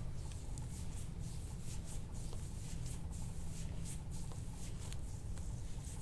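Faint soft rubbing and rustling, like hands working over skin and clothing, over a steady low hum.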